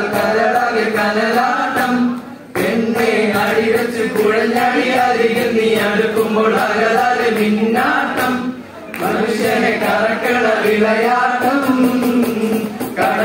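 A group of young men singing a Mappila pattu (Malayalam Mappila folk song) together in chorus, in long held phrases with two short breaks between them.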